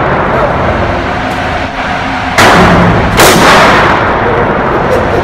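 Two pistol shots a little under a second apart, about two and a half seconds in, each ringing out in a long booming echo off the walls of an indoor shooting range.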